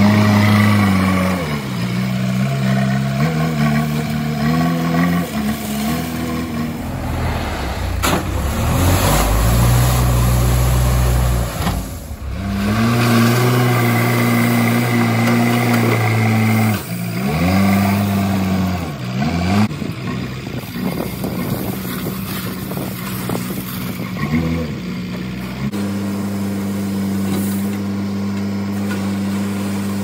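Diesel engine of a JCB 3DX backhoe loader running under load, its pitch dropping and rising again several times as the throttle is worked while the machine drives and handles its front loader bucket. A heavier low rumble comes in from about seven to twelve seconds in.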